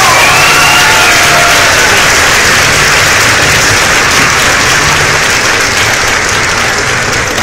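Crowd applauding, an even wash of clapping with a few cheers in the first second or so, easing off slightly toward the end.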